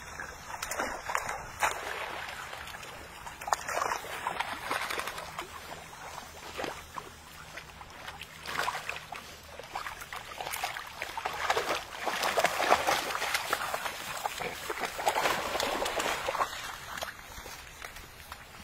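Dogs splashing and paddling in shallow pond water: irregular sloshing and splashing that swells and fades, loudest about two thirds of the way through.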